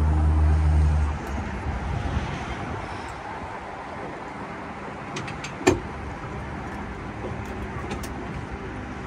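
A loud low motor hum stops about a second in. After it there is a steady hiss on the open boat, broken by one sharp knock a little past the middle.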